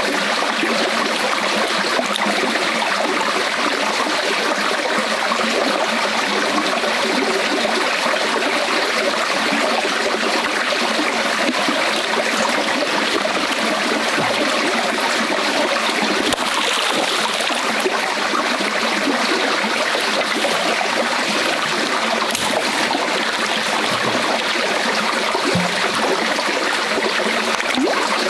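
Shallow, rocky forest stream running steadily, with a constant rush and trickle of water.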